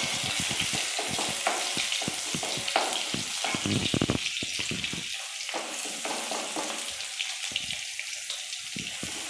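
Garlic and chillies sizzling in hot coconut oil in an aluminium kadai, with a wooden spatula scraping and tapping the pan as it stirs. The stirring strokes come thick in the first half and thin out later while the sizzle goes on.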